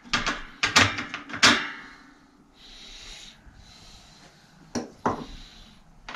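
Metal tools clinking and clattering against a bicycle wheel hub and on a metal workbench: a quick run of sharp clanks in the first second and a half, then a soft hiss, then a few more knocks near the end.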